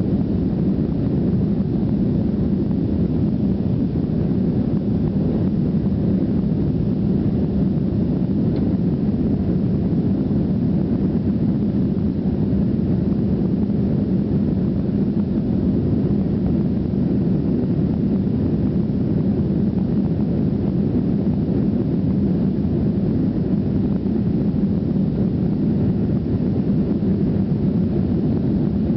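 Steady, deep engine noise from an Avro RJ100's four turbofan engines during take-off, holding even throughout.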